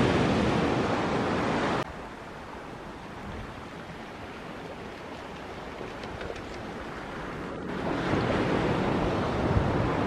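Steady rushing noise of wind and sea surf with no distinct events. Wind gusts on the microphone make it loud at first; it drops suddenly about two seconds in and swells again near the end.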